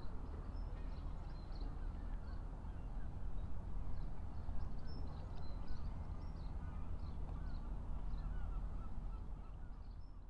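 Wind buffeting the microphone as an uneven low rumble, with many short bird chirps and calls over it throughout.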